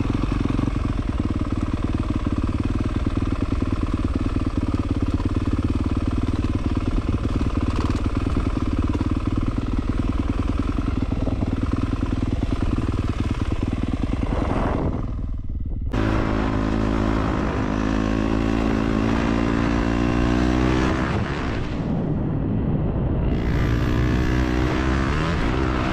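Dirt bike engine running while riding, its note fairly steady at first. After an abrupt break about fifteen seconds in, the engine pitch rises and falls repeatedly as the throttle is opened and closed.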